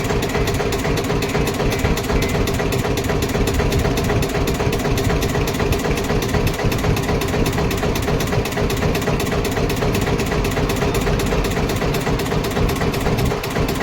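Diesel engine of a JCB 3DX backhoe loader running steadily at a constant speed.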